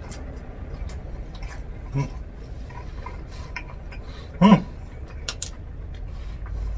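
A person chewing a bite of grilled eggplant with miso: small wet mouth clicks and smacks, with a short hummed "mm" about two seconds in and a louder, longer "mmm" of enjoyment about four and a half seconds in.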